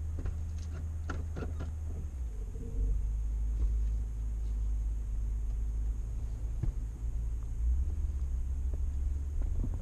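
Low, steady rumble of a vehicle driving, which gets louder about two seconds in, with a few light clicks near the start.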